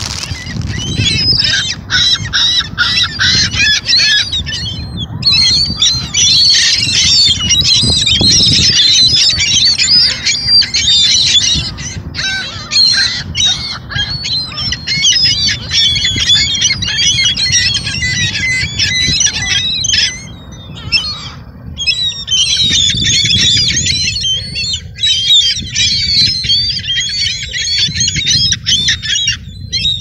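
A flock of gulls calling constantly, many high cries overlapping, with a brief lull about two-thirds through. A steady low rumble runs underneath.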